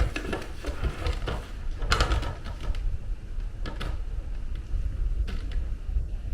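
Knocks and plastic clatter as the hood is taken off a CPS Easyflow flow hood meter, over a steady low rumble of air moving through the duct. The loudest knock comes about two seconds in, with others near four and five seconds.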